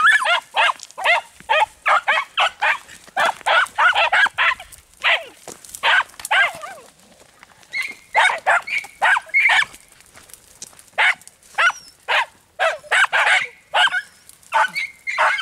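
Andalusian podenco hunting dogs barking in quick, high yelps, several a second, with short lulls about seven and ten seconds in.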